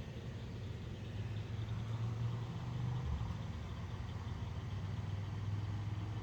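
A car engine running steadily with a low hum, with no sharp events.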